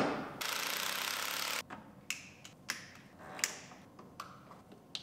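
A hand ratchet wrench spun quickly for about a second after a sharp click, tightening the underhood fuse box's bolts, followed by scattered small clicks and taps as wiring connectors are plugged in under the box.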